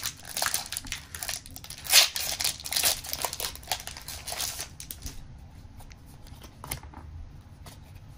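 Trading card booster pack wrapper crinkling and tearing open: a dense crackle for about five seconds, with a sharp loud rip about two seconds in. After that come only sparse light clicks as the cards are handled.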